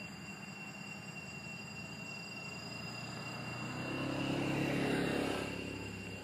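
A motor vehicle passing: its engine grows louder for about two seconds, peaks about five seconds in, then fades away.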